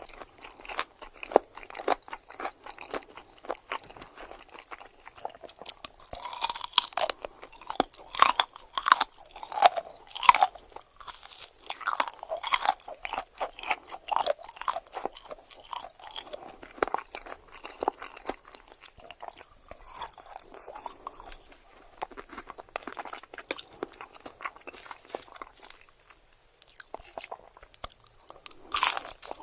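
Close-miked eating: crunchy food bitten and chewed, a long run of sharp crackling crunches that come thickest in the middle and again in a loud bite at the very end.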